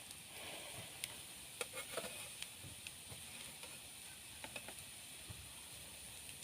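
Cooking over a wood fire: a faint, steady sizzling hiss with scattered small pops and clicks.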